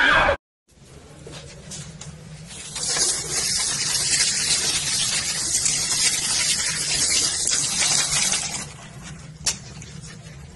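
Water running hard from a tap into a sink basin: a steady rushing noise that starts about three seconds in and stops a little before the end, over a low hum. One sharp click near the end.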